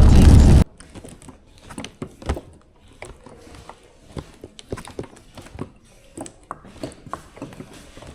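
Loud road and rain noise inside a moving car, cut off abruptly within the first second. Then a quiet room with scattered light clicks and taps at irregular intervals.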